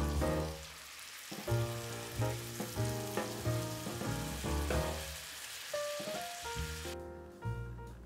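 Food sizzling and frying in a hot pan, a steady hiss that cuts off suddenly about a second before the end.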